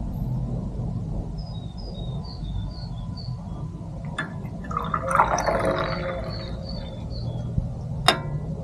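Liquid poured briefly about five seconds in, over a steady low rumble, with a row of faint high chirps beforehand and a sharp click near the end.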